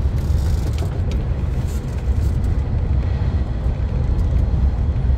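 Hanshin Railway rapid express train running at speed, heard from inside just behind the driver's cab: a steady low rumble of wheels on rails, with a few faint ticks in the first couple of seconds.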